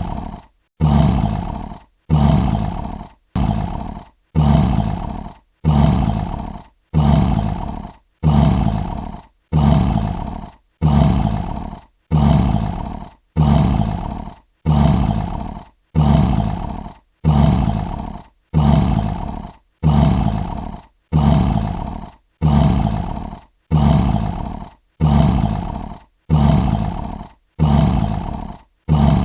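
Lion roar sound effect: the same short roar, about a second long, repeating evenly a little over once a second. Each repeat starts loud, fades and cuts off abruptly, the mark of one clip played in a loop.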